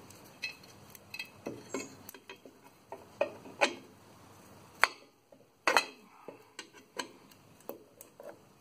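Irregular metal clicks and clinks of drum-brake shoes and return springs being handled and seated on a brake backplate, with two louder clinks around five and six seconds in.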